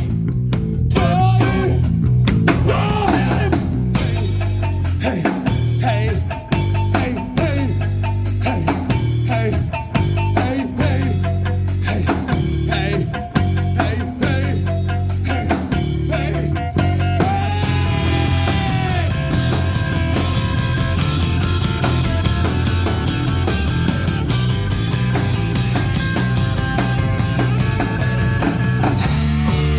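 A rock band playing live: electric guitar with bent notes over bass and drum kit. About two-thirds of the way through, it drives into a denser section with fast, steady drum hits.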